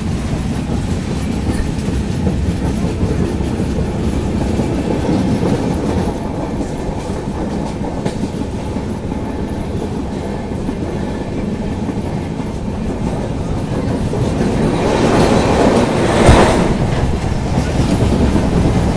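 Wheels of a moving express train clattering steadily over the rails, heard from an open coach door. The noise swells for a couple of seconds near the end, topped by one sharp clank.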